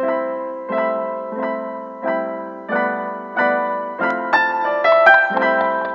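Background music: piano chords struck at an even pace, about one every two-thirds of a second, each ringing and fading. About four seconds in, a quick run of higher notes plays over them.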